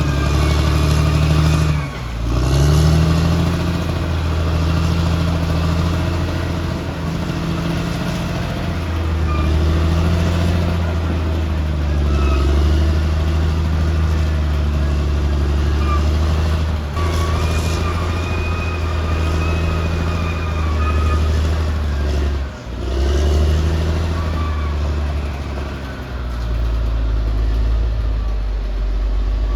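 Crawler bulldozer's diesel engine running hard under load, with a higher whine over it. The engine note sags briefly about two seconds in and again twice later.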